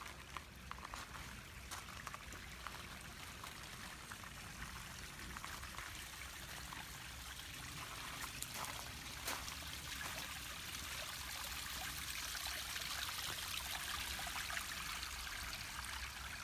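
Garden stone fountain: water trickling and splashing steadily, a little louder in the second half.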